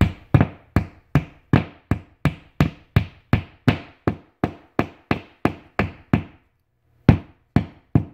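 Claw hammer tapping a plastic drywall anchor into a pre-drilled hole in sheetrock to set it flush: quick, even strikes about two and a half a second, with a short pause about six seconds in before the tapping resumes.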